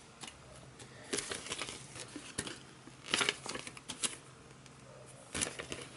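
Paper rustling as a small instruction booklet is handled and its pages opened, in several short crinkling bursts.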